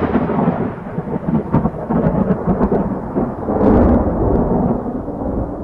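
A long rolling rumble of thunder with a few sharp crackles in it, starting to die away near the end.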